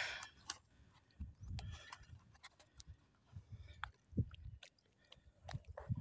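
Barefoot footsteps squelching through soft wet tidal mud, faint, a soft thump with small clicks roughly every half second. A brief rush of noise right at the start.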